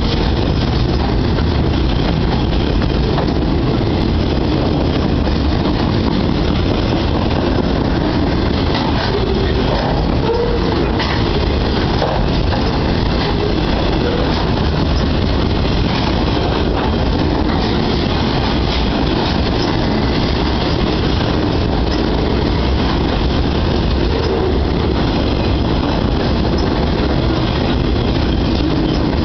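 Freight train of flatcars loaded with heavy steel pipe rolling steadily past close by: a loud, even rumble of steel wheels on rail, with occasional faint clacks.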